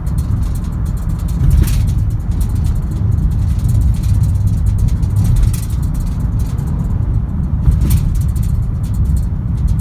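Lada Largus Cross driving over a rough road: a steady low rumble of tyres and running gear, with many small rattles. It takes sharper jolts about one and a half seconds in and again near the end.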